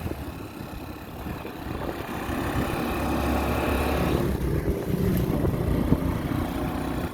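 A motor vehicle's engine running, growing louder over the first few seconds and then holding steady.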